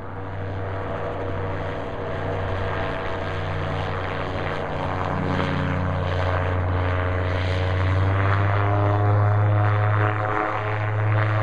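Xenon gyrocopter's engine and pusher propeller running steadily in low flight, growing gradually louder as it comes closer.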